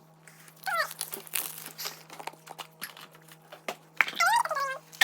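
Toy blind-bag packaging crinkling and rustling in short clicks as it is opened by hand, with two brief gliding vocal sounds, one about a second in and one near the end.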